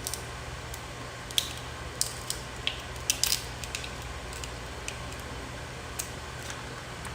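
Crab-leg shells being cracked and picked apart while eating: a run of sharp snaps and clicks between about one and three and a half seconds in, and a few single clicks later, over a steady low hum.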